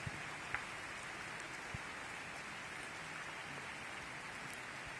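Steady rain falling on wet pavement and trees, with a few single drops ticking close by.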